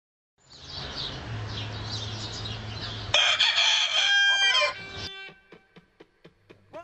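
A rooster crows once, loud, about three seconds in, over a background of steady hiss and faint high chirps. Near the end a run of faint, quick clicks follows.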